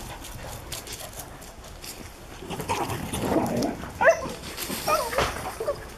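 Dog whining and yelping in short, high calls that drop sharply in pitch, a few of them in the second half.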